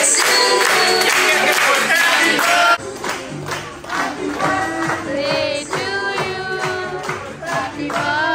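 A group singing with hand clapping, which cuts off abruptly about three seconds in and gives way to a quieter song with a clear singing voice.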